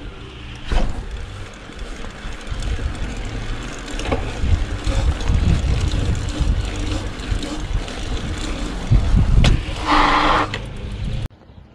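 Wind rumbling on the microphone of a camera worn by a rider on a mountain bike, with a few sharp knocks and a short louder sound about ten seconds in. The sound cuts off suddenly near the end.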